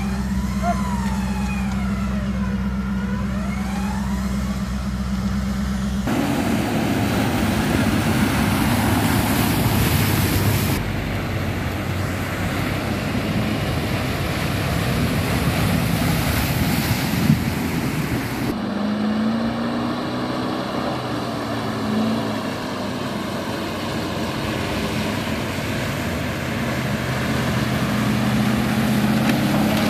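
Off-road 4x4 engines running and driving in several abruptly cut clips. First comes a steady engine hum with a wavering whine above it. About six seconds in, it gives way to a loud, noisy rumble of driving over rough ground. Past the middle, an engine revs up and down.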